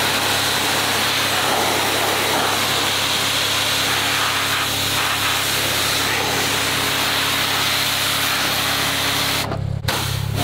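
Pressure washer jet spraying onto a car's waxed paintwork: a loud, steady hiss that cuts off suddenly near the end as the spray stops. A low steady hum runs underneath.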